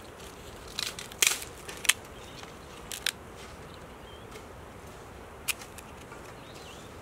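Knife cutting into the rind of a pomegranate to remove its crown: a handful of sharp, crisp crunches and clicks, loudest in the first two seconds, with a few more later.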